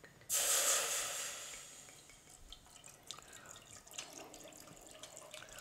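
Water from a kitchen faucet splashing into a stainless skillet in the sink, starting suddenly and fading away over about two seconds. Near the end, red wine pours faintly into a saucepan.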